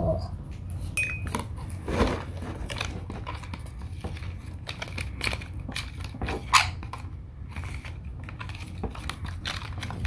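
White plastic spoon stirring and scraping in a plastic tub, mixing powdered baby-bird formula with warm water into a paste: irregular soft taps and scrapes over a steady low hum.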